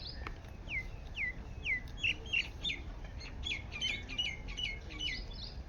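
A songbird calling: a series of short, sharply falling whistled notes that start under a second in and come faster and faster, ending shortly before the close.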